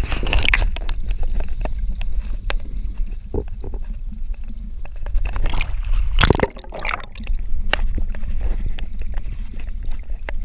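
Seawater sloshing and gurgling around a camera as it moves through and across the surface, over a steady low rumble with scattered sharp clicks. Louder rushes of water come at the start and again around six seconds in.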